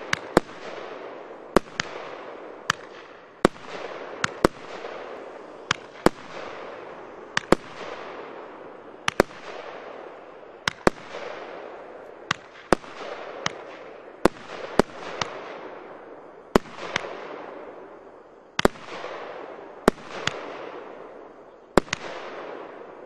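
36-shot 30 mm firework cake firing its shots in sequence: sharp reports roughly once a second, sometimes two in quick succession, each followed by a fading rush of noise.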